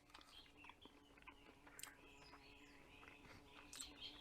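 Near silence with faint chewing: a man eating a piece of breaded, fried bluefish.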